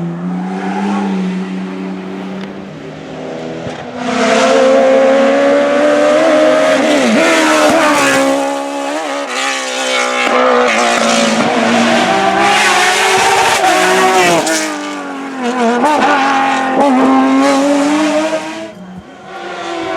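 Hill-climb race car engine revving hard, its pitch rising and falling over and over as it climbs and changes gear. It grows much louder about four seconds in as the car comes close and passes, with tyres squealing, then fades near the end.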